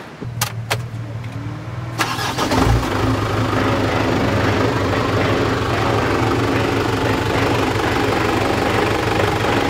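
Motorhome engine starting: a few sharp clicks, a low hum, then the engine catches about two seconds in and runs steadily.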